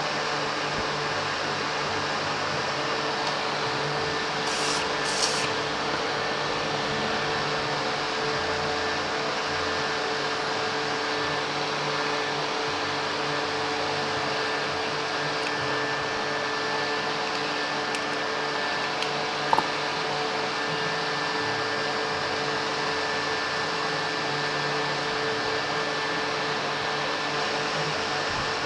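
A steady whirring hum like a running electric fan, with two short hisses about five seconds in and one sharp click near the twenty-second mark.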